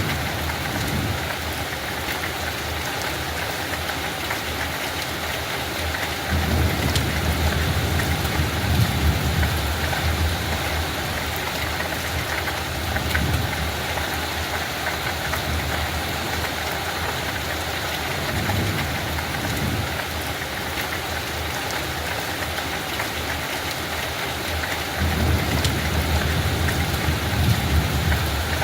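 Steady light rain falling on a field, an even hiss, with a low rumble swelling up a few times, the longest stretches about six seconds in and again near the end.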